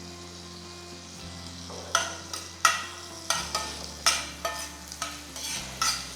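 Chopped garlic sizzling in melted butter in a pan, while a spatula stirs and scrapes it. The scraping strokes start about two seconds in and come about twice a second.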